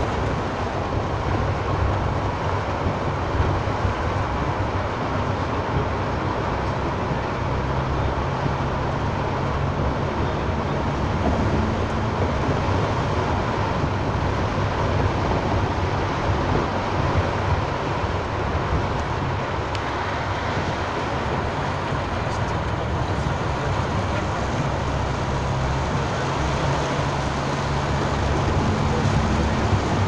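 Steady noise inside a moving car's cabin in heavy rain: rain on the roof and windscreen, tyres on the wet road, and the engine's low hum underneath, unchanging throughout.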